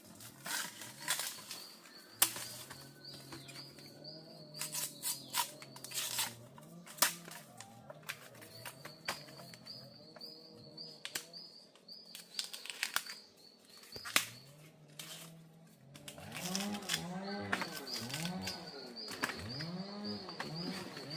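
Repeated low animal calls that rise and fall in pitch, coming faster and louder in the last few seconds, over a high pulsing trill and scattered sharp knocks.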